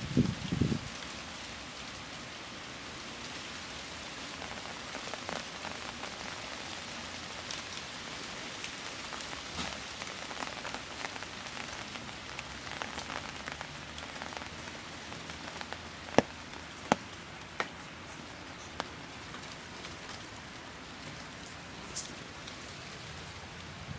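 Steady rain falling on garden plants and ground, an even hiss, with a few sharp single taps in the second half.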